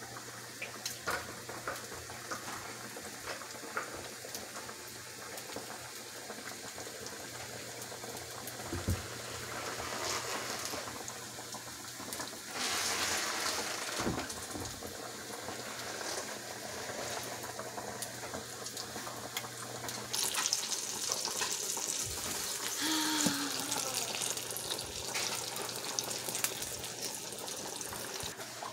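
Eggplant omelettes (tortang talong) sizzling in oil in a grill pan, with scattered small clicks. A low steady hum underneath stops about two-thirds of the way through.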